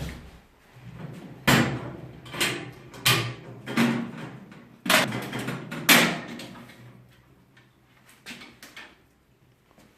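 A string of about eight separate knocks and clunks over a low steady hum; the knocks come thickest in the first six seconds, and two lighter ones come near the end.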